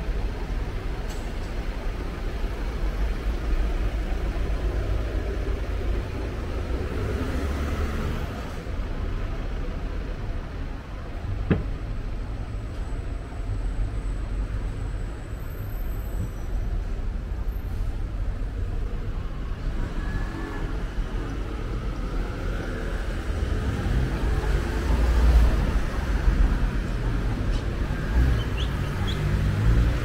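Street traffic: cars passing and idling at junctions, with a steady low rumble and a single sharp click about a third of the way through.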